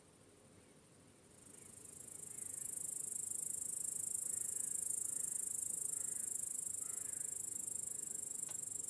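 Crickets chirping in a high, rapidly pulsing trill that swells in about a second in, holds steady, and cuts off abruptly at the end, over a faint low hiss.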